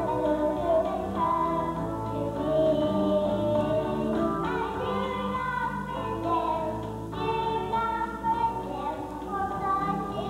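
Young girls' voices singing a song into microphones over instrumental accompaniment.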